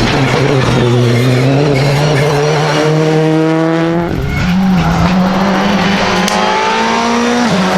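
Rally car engine running hard at high revs. Its pitch climbs, changes sharply about four seconds in as it shifts gear, and drops again near the end.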